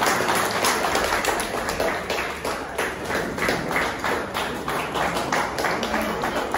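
Small audience applauding: many overlapping hand claps, steady throughout.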